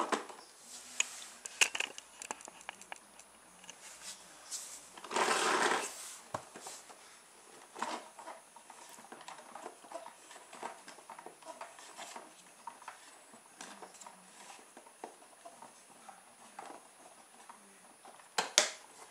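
Scattered light clicks and knocks from handling a homemade plastic toolbox car with CD wheels, likely as it is wound up and set down for another run. About five seconds in there is a short, louder rustle.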